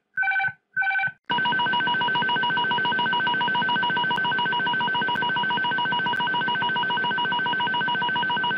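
Airbus A300 cockpit aural warnings: two short electronic chimes, then, from about a second and a half in, a continuous, rapidly pulsing warning tone.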